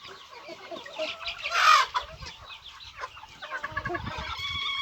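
A flock of chickens clucking and calling, with one loud squawk about a second and a half in and a run of repeated clucks near the end.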